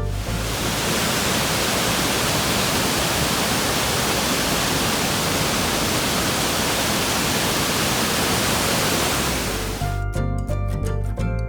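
Waterfall rushing: a steady, dense roar of falling water with no tones, cut off about ten seconds in by background music with a steady beat.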